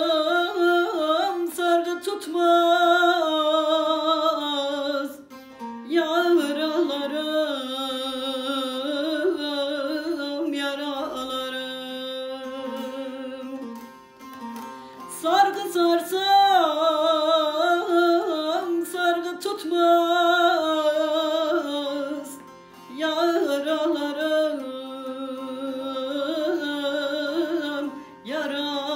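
A woman singing a Turkish folk song in long, ornamented phrases over a bağlama (long-necked saz). The voice breaks off briefly between phrases, about every six to eight seconds, while the bağlama carries on.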